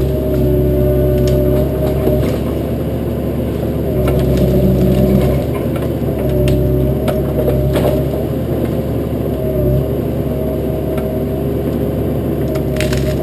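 Bobcat 337 mini excavator's diesel engine running steadily under hydraulic load, its note dipping and recovering every couple of seconds as the arm and thumb work, with occasional sharp cracks of brush and branches breaking.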